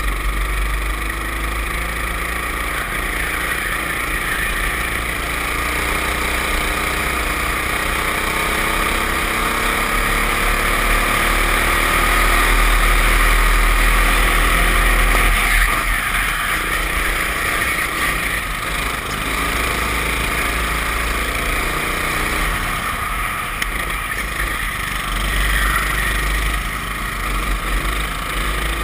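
Racing kart engine running hard, heard from the kart's onboard camera with wind rumble on the microphone. Its pitch climbs slowly for about fifteen seconds, drops suddenly, then rises and falls again through the corners.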